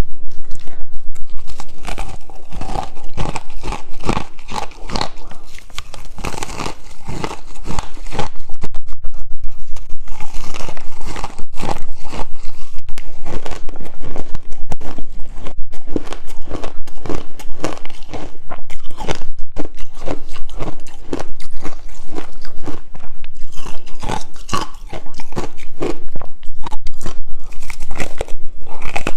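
Ice chunks being bitten and chewed close to the microphone: loud, rapid crunching, several crunches a second, with brief lulls between bites.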